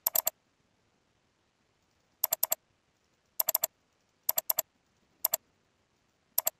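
Computer mouse clicks: four quick double-clicks opening folders one after another, then two single clicks selecting a file and pressing a button, with silence between the groups.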